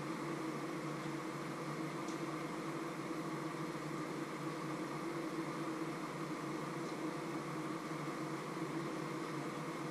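Steady appliance hum with a faint hiss, even throughout.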